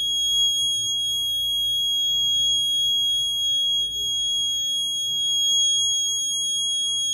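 Piezo alarm buzzer on an Arduino vehicle anti-theft board sounding one continuous high-pitched tone. The alarm is on while the system, its engine cut off, sends its SMS alert.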